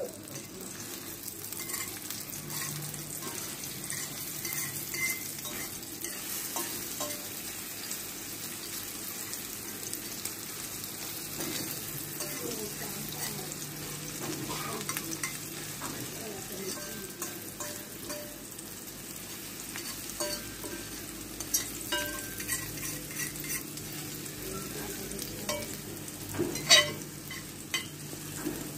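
Eggs sizzling in hot oil in a frying pan while a metal fork stirs and breaks them up. The fork scrapes and taps against the pan, more often in the last third, with one loud tap near the end.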